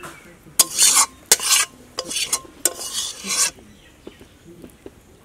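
A spatula stirring and scraping through a bowl of snail and potato curry, in about four strokes that end about a second and a half before the end.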